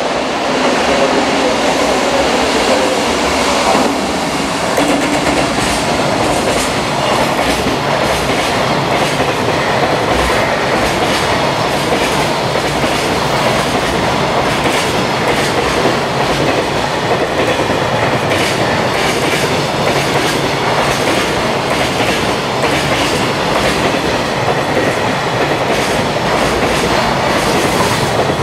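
Long container freight train passing close by at speed: a steady, loud rumble of steel wheels on the rails, with a regular clickety-clack as the wagons' wheels cross the rail joints.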